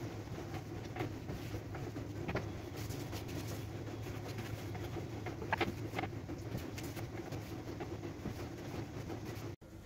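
Light knocks and rubbing as an empty pull-out kitchen drawer is wiped out with a cloth, over a steady low hum; two sharper knocks come a little past the middle.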